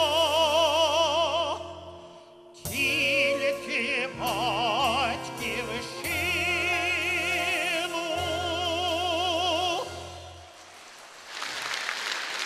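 A man sings the last long held notes of a song with a strong vibrato, over a small band with accordion and drums. The music fades out about ten seconds in and applause starts soon after.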